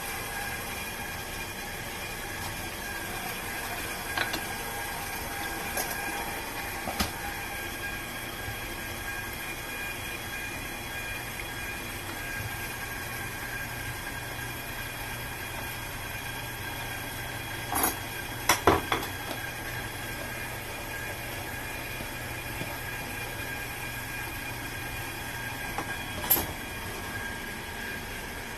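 KitchenAid stand mixer running steadily, driving its KSMMGA metal food grinder attachment as fresh beef chuck eye is fed through and ground. There are a few sharp knocks, the loudest a quick cluster about two-thirds of the way through.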